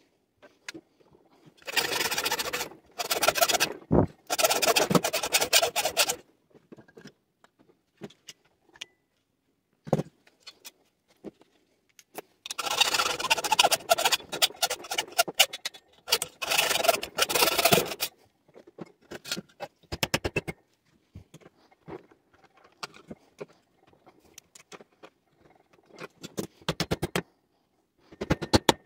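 Metal scraping and rattling from a General Electric air conditioner being taken apart for scrap: two rough scraping spells of several seconds each, with scattered clicks and knocks between them.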